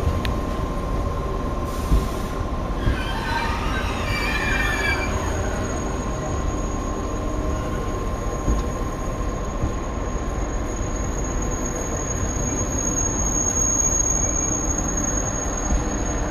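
TGV Duplex double-deck high-speed train rolling slowly alongside the platform, with a steady rumble from the wheels on the rails. Brief wavering wheel squeals come a few seconds in, and a thin high squeal grows louder in the second half.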